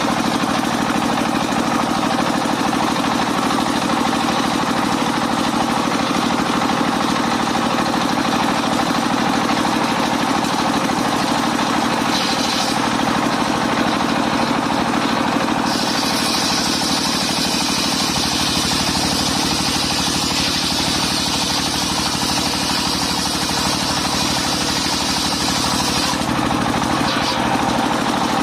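Engine-driven mobile circular sawmill running steadily. About halfway through, a higher hiss joins for some ten seconds, as of the blade cutting through the log, then drops away.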